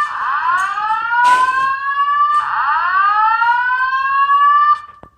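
Fire alarm speaker-strobe sounding the slow-whoop evacuation tone: two rising sweeps of a little over two seconds each that stop shortly before the end. It is the alert tone that comes before a Simplex recorded voice evacuation message.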